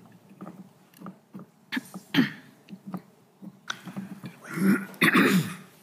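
Quiet pause in a council chamber: scattered small clicks and handling noises at the dais, with a short vocal sound about two seconds in and a louder, longer one near the end, like a throat clearing or a brief mumble.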